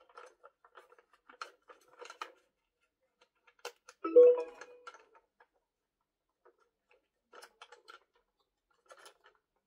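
Light scattered clicks and taps of a plastic toy and its packaging being handled. About four seconds in comes one short, louder tone lasting under a second.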